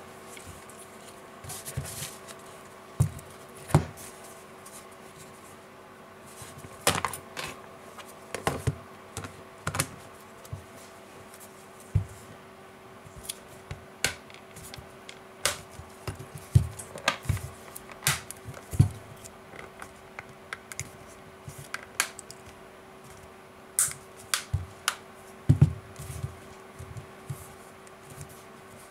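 Irregular plastic clicks and taps as the Asus Nexus 7 tablet's back cover is pressed and snapped into place around its edges by hand, over a faint steady hum.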